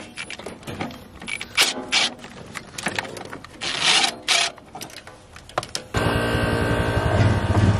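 Scattered knocks, clanks and scraping from parts and tools being handled and shifted. About six seconds in, a steady engine hum comes in abruptly.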